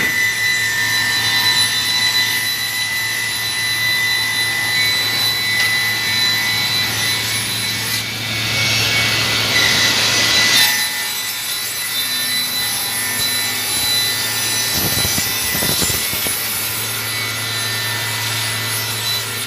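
Reignmac RMD6025M double end tenoner running, a steady motor hum with high whining tones from its spinning cutter heads. About eight seconds in a louder rushing cut sounds as the cutters slot a wood panel; it stops sharply about three seconds later.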